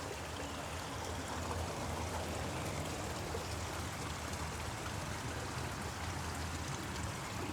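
Steady trickle of water running over a backyard pond waterfall, with a low steady hum underneath.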